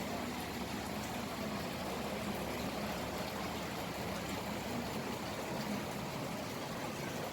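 Steady background noise: an even hiss with a faint low hum, with no distinct event standing out.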